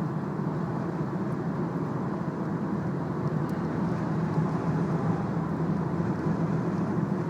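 Steady road and wind noise inside a car cabin at high Autobahn speed, with a low, even drone from the tyres and drivetrain.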